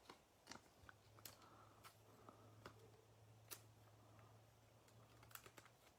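Near silence: a low steady hum with faint, scattered clicks of trading cards being handled and sorted.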